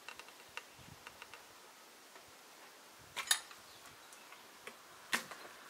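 Metal hand log turner working a heavy log: scattered light clicks, then two louder knocks about three and five seconds in, as the hook and bar bite and the log shifts on its timber bearers.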